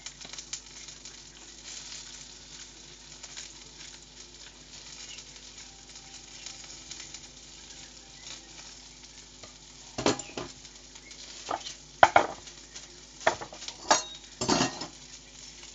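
Food sizzling and crackling as it fries in a pan. In the last few seconds, half a dozen short, loud, sudden sounds cut in, the loudest about two-thirds of the way through.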